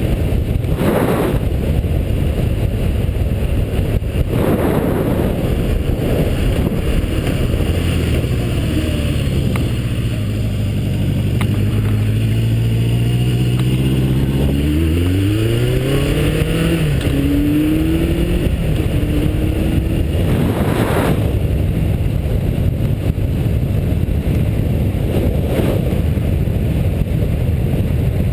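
Motorcycle on the move, its engine and heavy wind rush on the microphone making a steady loud rumble. About halfway through the engine note dips, then climbs as the bike accelerates, dropping once in a gear change before rising again.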